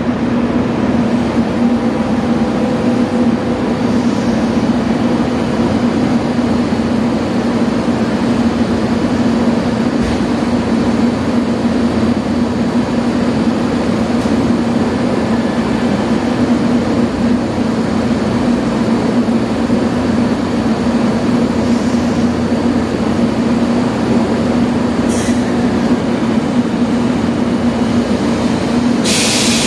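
JR Kyushu 883 series electric train standing at the platform, its onboard equipment giving a steady hum. A brief hiss near the end.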